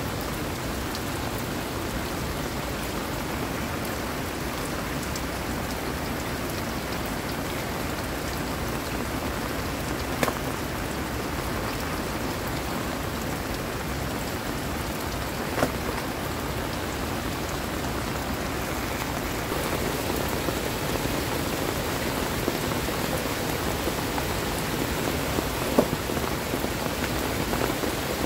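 Heavy rain falling steadily on a thatched roof and muddy ground, growing a little louder about two-thirds of the way through. A few sharp knocks stand out, about 10, 16 and 26 seconds in.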